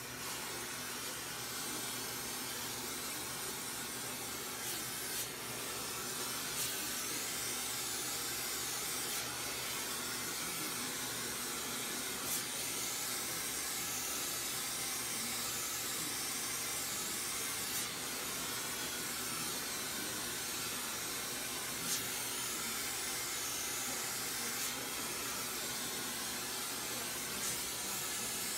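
Flameworking torch flame hissing steadily as it heats a glass piece held on a glass lathe, with a few faint ticks now and then.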